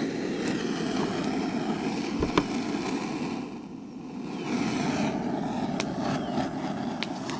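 Handheld gas torch flame running with a steady rushing sound as it toasts the inside of a hollowed-out bread loaf; the sound weakens for about a second midway, then comes back. A few faint clicks.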